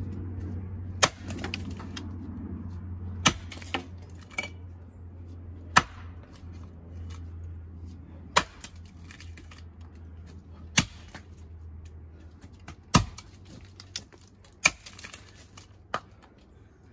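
Axe blows chopping into the notch of a tree trunk: a sharp crack every two to three seconds, about eight strikes in all.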